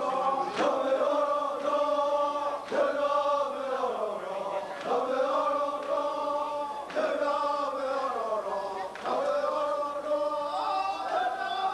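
A group of voices chanting in unison: a short sung phrase that slides up in pitch at its start and repeats about every two seconds.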